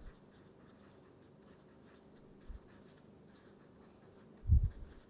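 Felt-tip marker scratching on paper in short strokes as words are written. A low thump about four and a half seconds in, with a smaller one about halfway, stands out over the faint writing.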